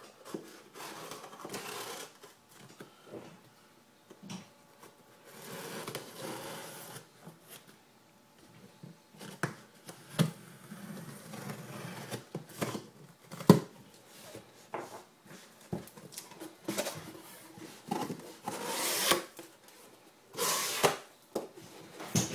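A shipping box being opened and unpacked by hand: scattered knocks and scrapes of cardboard with several stretches of rustling packing material, and one sharp knock about halfway through.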